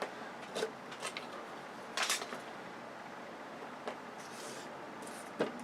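Scattered light metallic clinks and clatters, about five in all, as small pieces of scrap steel and wire from a dismantled television are handled and set down.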